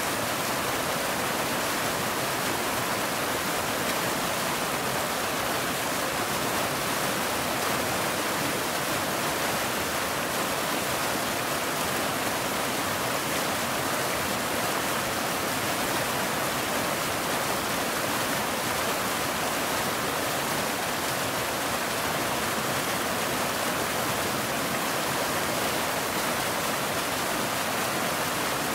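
Waterfall rushing steadily: an even, unbroken hiss of falling water with no change in level.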